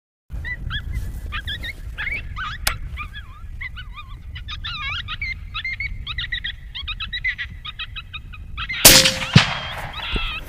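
A run of short, high, warbling animal calls, then a single rifle shot about nine seconds in, followed half a second later by a second sharp crack. The shot is the loudest sound.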